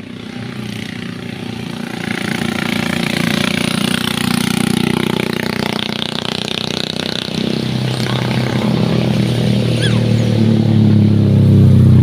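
Motor vehicle engine running steadily and growing louder as it approaches, loudest near the end.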